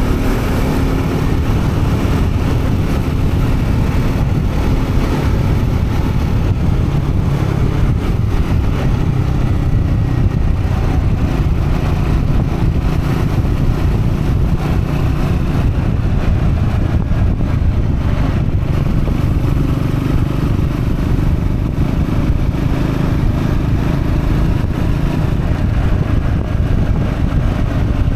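Triumph Scrambler 400X's single-cylinder engine running steadily under a gentle break-in ride, with wind rush. The engine note shifts briefly near the start and then holds an even pace.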